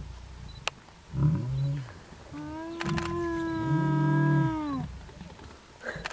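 Male lion giving soft, low roars, deliberately kept quiet so that rival males won't hear, together with a hyena's long eerie call. One short low roar comes about a second in. The hyena's steady call runs for about two and a half seconds before dropping away, with the lion's low roar overlapping its middle.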